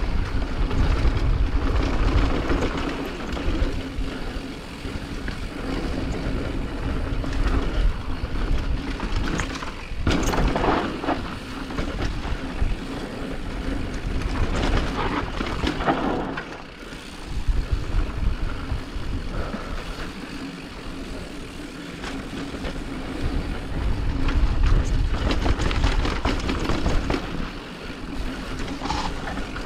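Steady mechanical running noise with a constant low hum, under a rumble that swells and fades like wind buffeting the microphone.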